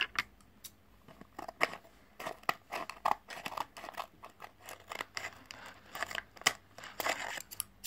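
Scissors cutting open a bag of snow powder: a long, irregular run of sharp snips and clicks with brief rustles of the bag.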